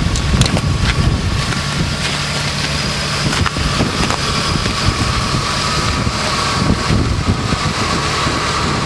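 Engines of lifted 4x4 jeeps idling steadily, with wind buffeting the microphone.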